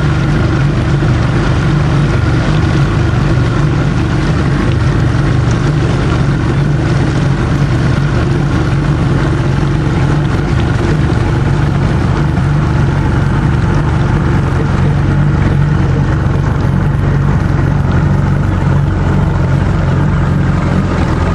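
Small motorboat's engine running steadily at cruising speed, a loud even hum heard from on board.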